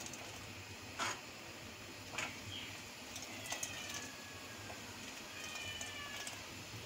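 A metal ladle knocking a few times against a large aluminium pot while beaten egg is stirred into the boiling soup. Twice a thin, high whine falls slowly in pitch behind the knocks.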